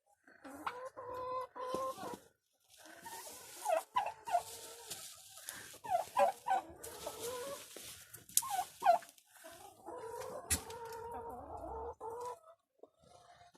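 Domestic poultry calling: clucking with several longer held calls near the start and again about ten seconds in, and short sharp calls in between over a hissing sound.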